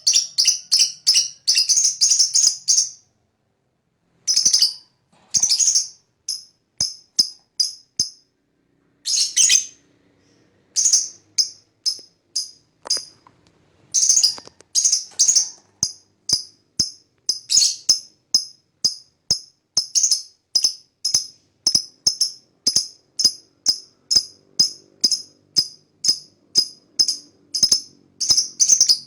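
Lovebird calling with a long series of short, sharp, high-pitched chirps: a fast run at first, a couple of short pauses, then steady calls about two a second.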